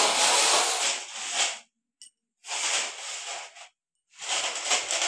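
Homemade broom of thin cut plastic-bottle strips on a long pipe, brushing against the wall and ceiling: three long swishing strokes with short silent gaps between them.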